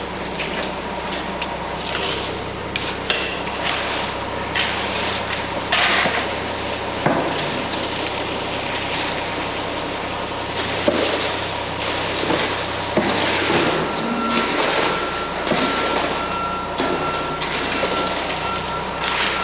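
Engine running steadily under scattered scrapes and knocks from concrete work. About fourteen seconds in, the engine's low hum drops away and a steady high whine comes in.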